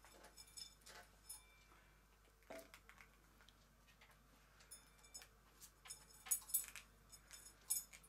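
Faint, scattered clinks and taps of small hard objects on a table, coming closer together and louder near the end.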